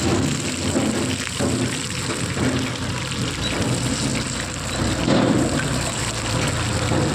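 Fish frying in hot oil on a tawa, sizzling steadily.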